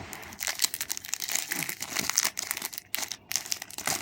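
A plastic Match Attax trading-card packet being crinkled and torn open, a run of sharp crackles and rips.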